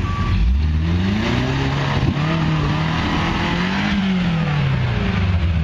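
Vehicle engine revving under load as it tries to climb a rock ledge: the revs rise about half a second in, hold, climb again around four seconds, then fall back toward idle near the end.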